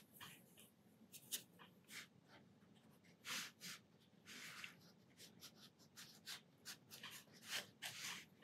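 Faint scratchy dabs and swishes of a round synthetic watercolour brush, first worked in a palette well and then stroked in short touches across watercolour paper.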